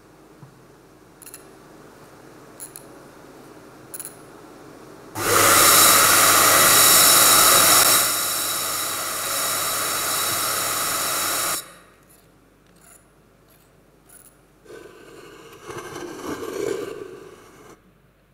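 Loud, even noise played over the hall's PA system as a test during a sound check. It starts abruptly about five seconds in, drops in level partway through and cuts off after about six seconds. A shorter, quieter burst comes near the end, and a few faint clicks come before the first one.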